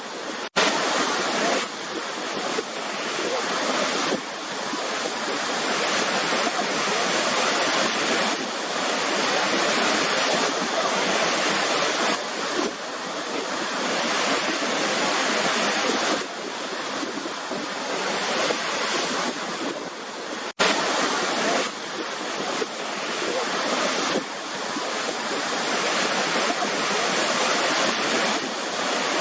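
Waterfall: a steady rush of falling water that swells and eases every few seconds. The rush is broken by two momentary gaps, about half a second in and about twenty seconds in.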